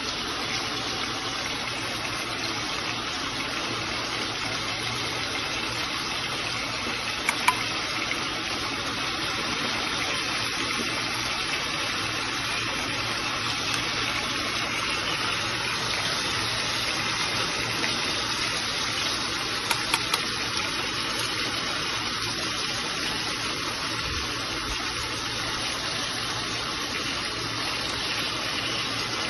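Pot of potatoes and tomatoes simmering in liquid on a gas burner: a steady hiss, with light clicks from a wooden utensil against the pot about 7 seconds in and again near 20 seconds.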